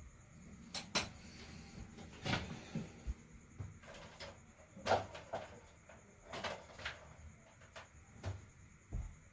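A string of irregular clicks and knocks, as of small hard objects being handled and set down, with short quiet gaps between them.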